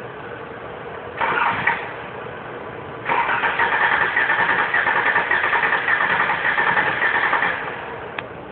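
2011 Dodge Journey engine being cranked by its starter: a short crank about a second in, then a steady, rhythmically pulsing crank of about four seconds that stops without the engine settling into a louder run.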